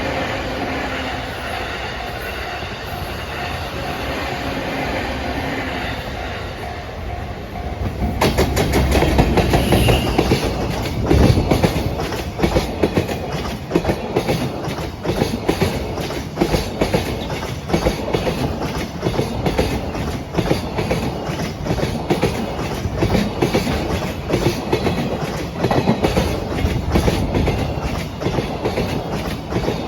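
Level crossing warning bell ringing, then about eight seconds in a JR Freight EF210 electric locomotive arrives loudly and a long freight train of container flatcars passes, its wheels clicking over the rail joints.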